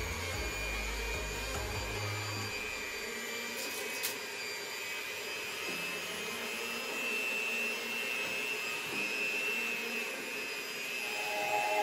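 Electric hand mixer running steadily, its beaters working bread dough in a bowl, with a constant motor whine.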